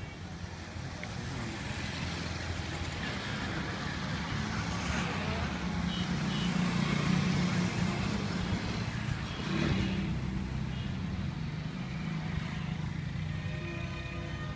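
Roadside traffic: motor vehicles running past on a highway, the engine noise swelling to its loudest around the middle and then easing off.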